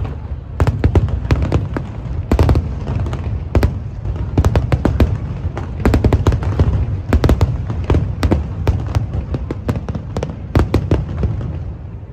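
Aerial fireworks shells bursting in a dense barrage of sharp cracks over low booms. The barrage thins out near the end.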